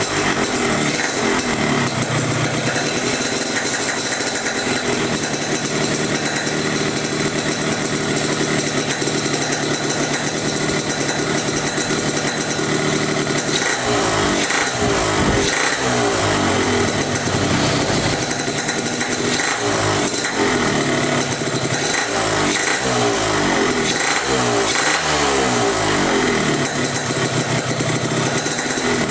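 Yamaha RX-King's 135 cc two-stroke single-cylinder engine idling steadily, then from about halfway blipped repeatedly, the revs rising and falling. The engine has new piston rings and a new small-end needle bearing, fitted to cure a knocking noise.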